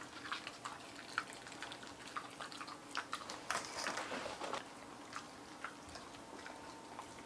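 Dogs biting and chewing pieces of a chewy dog cake: irregular wet smacks and clicks of jaws and tongue, thinning out near the end.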